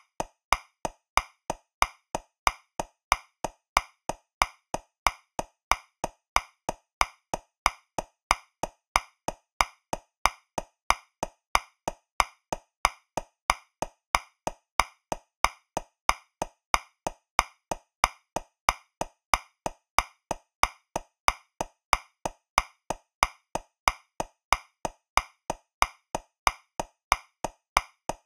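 Metronome clicking steadily at 185 beats per minute, about three clicks a second. Every other click is louder, the accent marking the first beat of each 2/4 bar.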